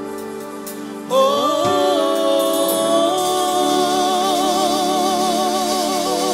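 Gospel worship singing: voices come in about a second in, sliding up into long held notes with vibrato over steady sustained chords.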